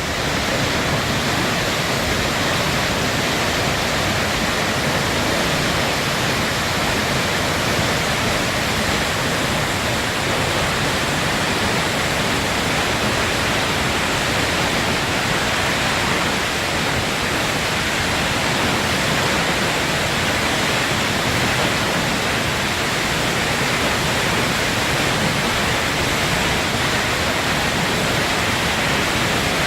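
Water pouring down the Hardraw Force waterfall: a loud, steady rush of falling water.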